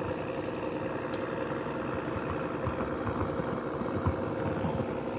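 An engine idling steadily with an even hum, and a faint knock about four seconds in.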